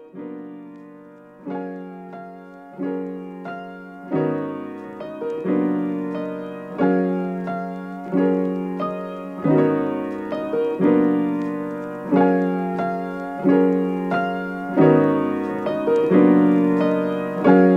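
Solo piano or electric piano intro to a jazz hop track: soft chords struck every second or so, each ringing and fading, with no drums.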